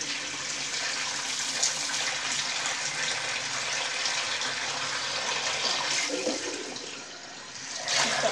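Water running steadily from a tap, easing off about seven seconds in and picking up again near the end.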